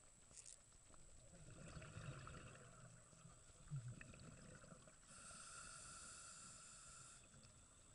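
Faint scuba regulator breathing heard underwater: a low bubbling rumble of exhaled bubbles, then a hissing inhale through the regulator from about five seconds in that stops after two seconds.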